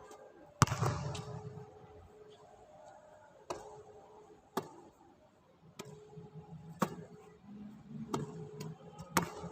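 A basketball being chest-passed against a wall: seven sharp smacks at uneven intervals of roughly a second, as the ball hits the wall and is caught.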